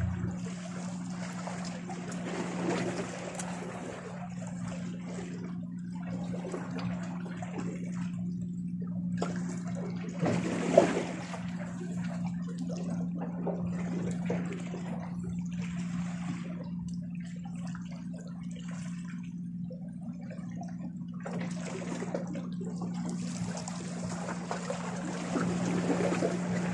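Small waves lapping and sloshing against shoreline rocks, swelling and fading, over a steady low hum. A single sharp knock about eleven seconds in.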